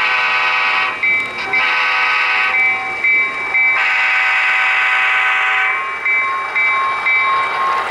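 BNSF model diesel locomotive's sound system blowing its horn in three blasts, the last held about two seconds, as the locomotive passes. A bell rings steadily between the blasts, about two strokes a second.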